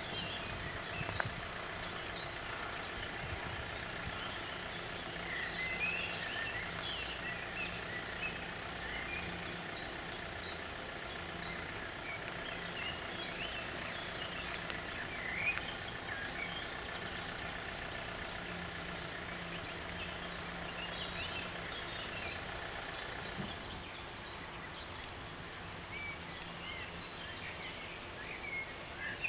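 Songbirds chirping and singing over a steady, low engine hum.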